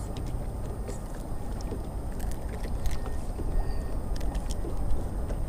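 Steady low rumble of wind and water around a small open boat, with a few faint clicks as a caught fish is unhooked by hand.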